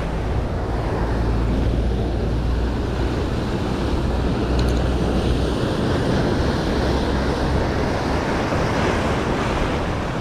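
Sea surf breaking and washing up a beach in a steady wash of noise, with wind buffeting the microphone as a low rumble.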